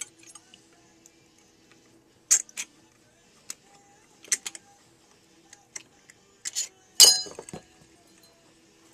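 Sharp metallic clicks and clinks as the aluminium spacer rings and platters of a hard drive's platter stack are lifted off the spindle and set down, one every second or so. The loudest is a quick cluster of ringing clinks about seven seconds in.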